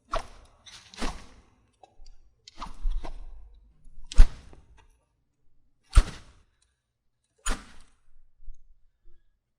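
A run of sword sound effects, sword swishes and slash hits, about seven short sharp sounds, one every second or so, the loudest about four seconds in.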